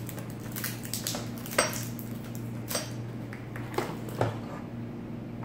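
Hard plastic clicks and knocks, about six at uneven intervals with the sharpest about a second and a half in, as the Sizzix Big Kick die-cutting machine's plastic platform and loose parts are handled and slid out. A low steady hum runs underneath.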